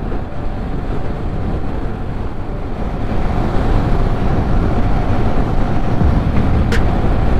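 Motorcycle riding at speed: wind rushing over the microphone with the engine's drone and a steady thin whine, growing louder about three seconds in. A single short, sharp click near the end.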